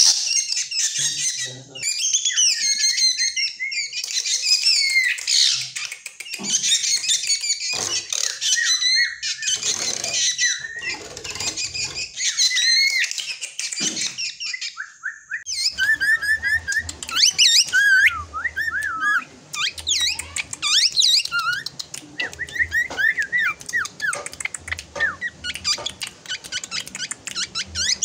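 Drongo singing a varied, continuous run of loud whistles, squeaks and quick rising and falling chirps, with a brief pause about halfway through.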